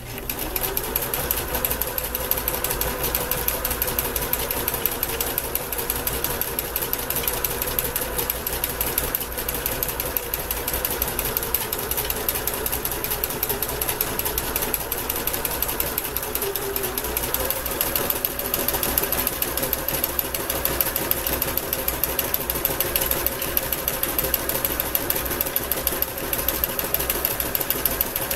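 Basic Kenmore electric sewing machine starts and runs steadily, its motor humming under a fast, even rattle of needle strokes as it zigzag-stitches along the edge of cross-stitch fabric to stop fraying.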